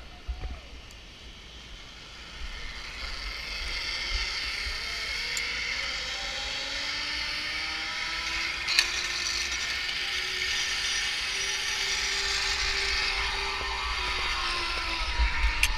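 Zip-line trolley pulleys running along a steel cable: a whirring whine that builds from about two seconds in, its pitch slowly rising and then falling, with a few sharp clanks near the end.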